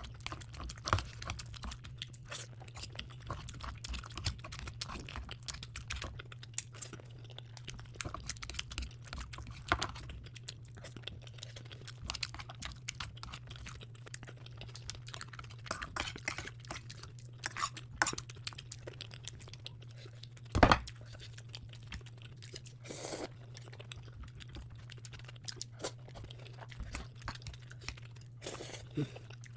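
Close-miked chewing and crunching of food, with many small wet clicks and crunches over a steady low hum, and one loud knock about two-thirds of the way through.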